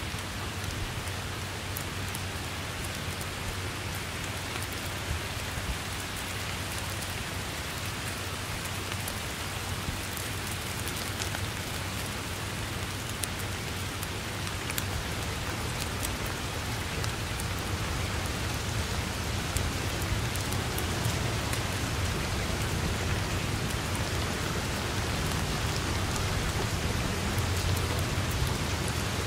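Steady heavy rain falling on grass and foliage: a dense even hiss scattered with sharper drop taps, over a low rumble. It grows a little louder in the second half.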